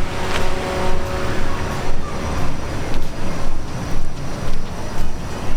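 Footsteps of someone walking, about two a second, over a steady rumble of street traffic. A steady hum fades out about two seconds in.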